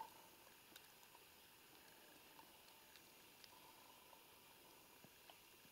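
Near silence: a faint steady outdoor hiss with a few tiny scattered clicks.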